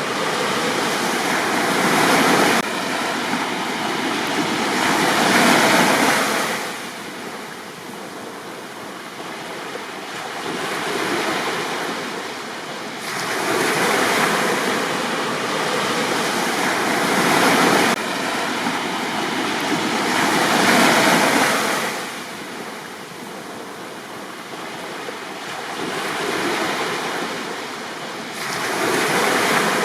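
Sea waves breaking on a beach, the surf swelling loudly and then washing back and fading every few seconds.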